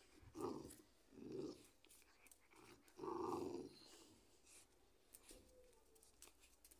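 Pit bull puppy growling as it tugs at a cloth, in three short bursts: about half a second in, about a second later, and a longer one at about three seconds.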